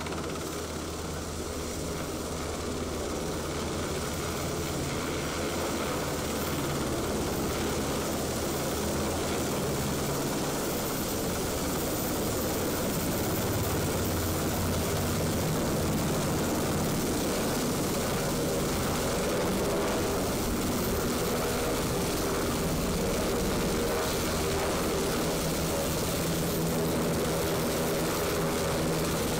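UH-60 Black Hawk helicopter's rotors and twin turboshaft engines, steady and growing louder through the first half as it comes down low and settles onto the ground.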